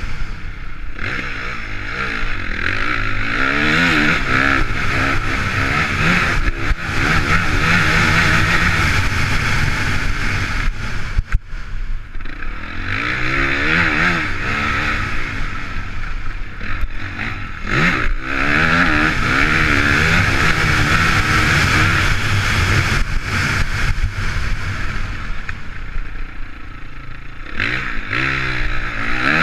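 Motocross bike engine at full throttle, heard from the rider's helmet: it climbs in pitch over and over as it is wound out through the gears and drops off briefly when the throttle is closed, with a sharp dip about eleven seconds in.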